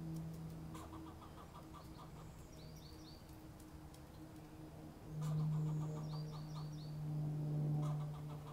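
Squirrel chattering at the dogs: short bouts of rapid clucking barks, about a second in, from about five seconds in, and again near the end. A low steady hum rises about five seconds in and is the loudest sound, with quick groups of high chirps above.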